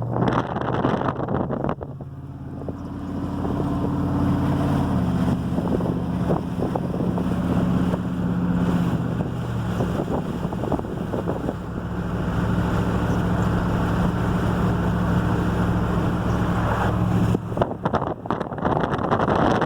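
Vehicle engine and road noise while driving, a steady low engine hum under a rushing sound, the hum shifting in pitch a few times as speed or gear changes.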